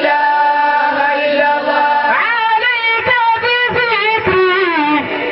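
A woman's voice chanting a Sufi zikr (dhikr). She holds long notes for about two seconds, then moves into ornamented phrases whose pitch slides up and down.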